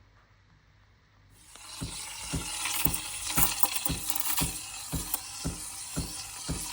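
Faint low hum, then about a second and a half in, background music with a steady beat cuts in over a bright hiss.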